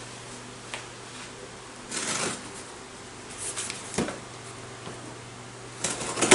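Cardboard shipping box handled on a steel table: it is lifted and set back down, with cardboard scraping and rustling in short spells and a sharp knock near the end. A steady low hum lies underneath.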